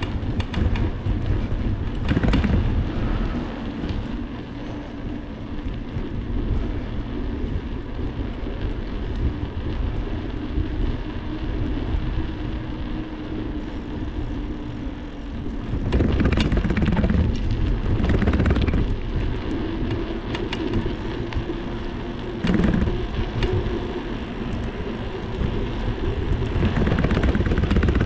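Wind buffeting the microphone of a camera riding on a moving bicycle, with road rumble and several short rattles from bumps in the pavement.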